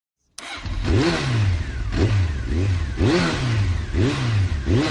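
Yamaha NMAX 160 scooter engine revved in short throttle blips, about one a second, each rising quickly in pitch and falling back.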